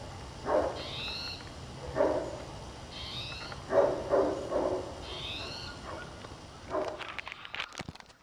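Great Pyrenees barking single deep woofs, about five of them spaced a second or two apart, the loudest a little before the middle.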